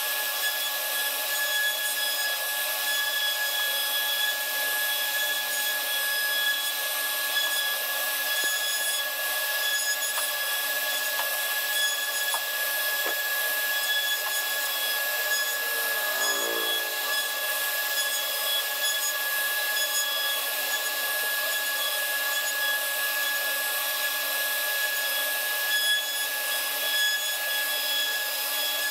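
CNC router carving wood: the spindle's steady high whine over the rasping of the bit cutting into the wooden panel.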